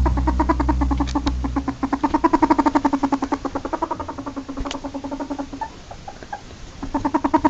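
Ferret dooking: a rapid, rhythmic clucking chatter of about eight to nine clucks a second, which breaks off for about a second near the end and then starts again. A low steady hum sits underneath for the first second and a half or so.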